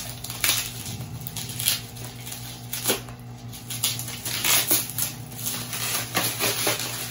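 Bubble wrap and plastic packaging being pulled and torn open by hand, rustling and crinkling with irregular crackles and a few sharper clicks.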